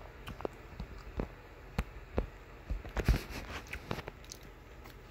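Handling noise: irregular light clicks and knocks, with a louder cluster about three seconds in.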